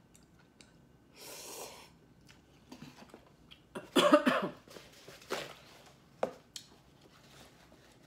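A person coughs once, loudly and briefly, about four seconds in, with a softer breath about a second in and a few small mouth or eating clicks after the cough.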